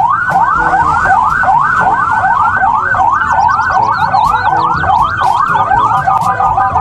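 Toy police car's electronic siren, a fast repeating rising yelp about three times a second.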